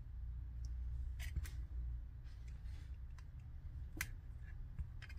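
A few light clicks and taps as a router circuit board and multimeter test probes are handled and the board is set down on the bench, the sharpest about four seconds in. A low steady hum runs underneath.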